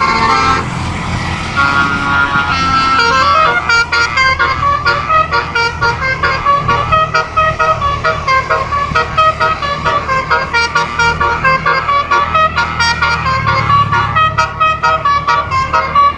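A 12-trumpet basuri telolet air horn set playing a melody from a MIDI file, with its pitched horn notes following one another several times a second. A steady low hum runs underneath.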